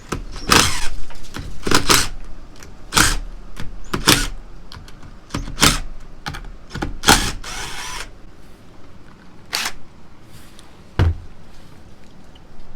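Metal engine parts clinking and clanking as they are handled and set down during teardown of an ATV engine: sharp knocks about once a second, some with a brief metallic ring, and a duller thump near the end.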